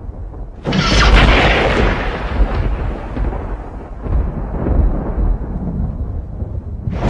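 Thunder: a sudden sharp crack about a second in that dies away into a long low rumble, then a second crack breaks near the end.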